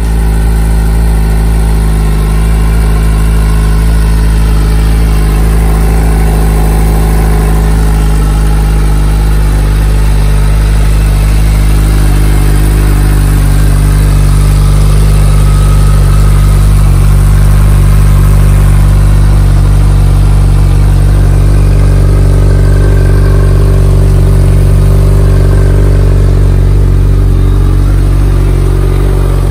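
Suzuki Hayabusa's 1,340 cc inline-four engine idling steadily, loud and close.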